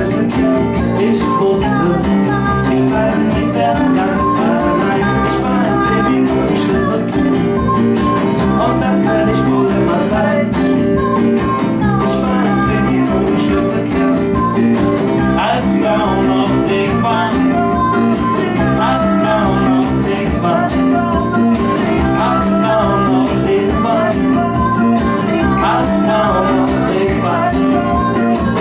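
Live band music with guitar, played to a steady beat in a long passage without words.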